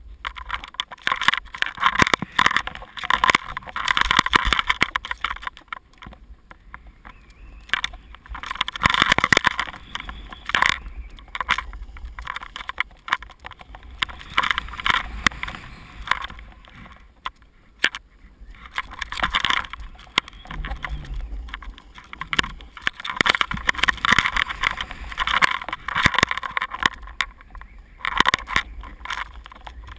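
Snow hissing and scraping under a rider's edges through a run of turns, in repeated surges of a second to a few seconds with brief lulls, under a steady low rumble of wind on the camera microphone.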